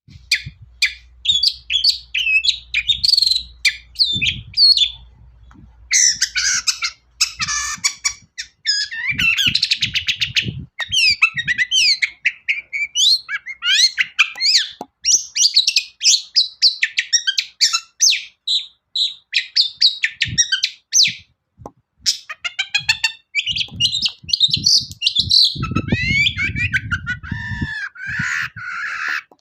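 Long-tailed shrike singing in a fast, varied outpouring of harsh chatters, rapid trills and whistled phrases, strung with mimicked calls of other birds. The song breaks off briefly about five seconds in and again a little past twenty seconds.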